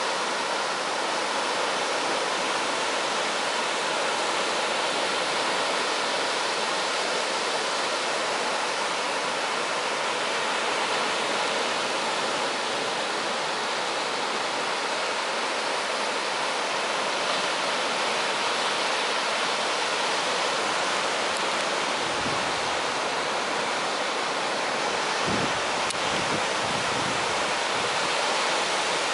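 Ocean surf breaking and washing up a sand beach, a steady rushing noise. Two brief low rumbles come in near the end.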